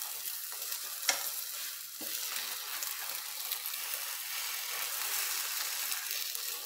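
Egg omelette sizzling steadily in an oiled ceramic non-stick frying pan while a silicone turner and wooden spoon push and roll it. There are two light knocks of the utensils, about one and two seconds in.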